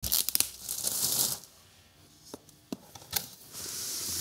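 Thin plastic shrink-wrap crinkling and tearing as it is pulled off a cardboard box, then a few light knocks of the box being handled and a smooth hiss near the end as the cardboard lid slides off.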